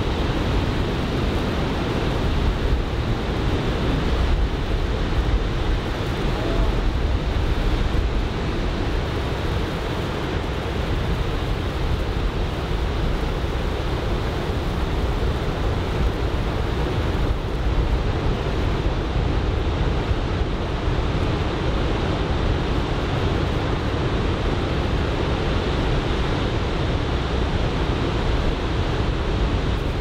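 Steady onshore wind buffeting the microphone, mixed with the wash of breaking surf.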